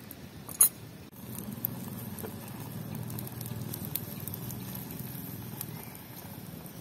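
A cooking fire burning with a low, steady rumble and faint scattered crackles, starting about a second in. A single sharp click comes just before it.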